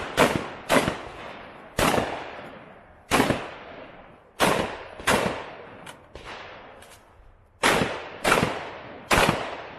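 A string of about nine gunshots from a competition firearm at uneven intervals, some half a second apart and others over a second, each trailing off in an echo. A couple of fainter cracks fall between them near the middle.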